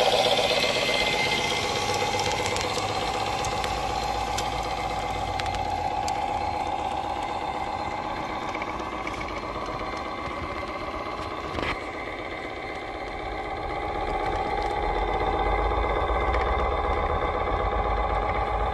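Simulated diesel truck engine sound from a 1/14 Tamiya RC truck's sound unit, running steadily with a fast pulsing throb as the truck drives, and a single short click about two-thirds of the way through.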